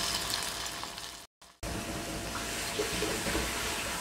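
Spicy yellow bean fritters deep-frying in a pot of hot oil, sizzling steadily. The sizzling breaks off for a moment about a second and a half in, then carries on.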